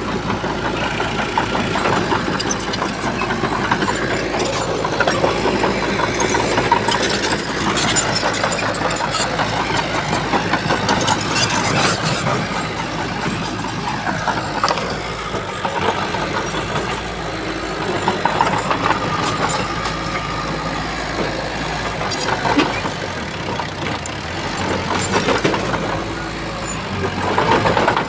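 Diesel engine of a Shantui bulldozer running, rising and falling in level, with frequent clanks and knocks throughout.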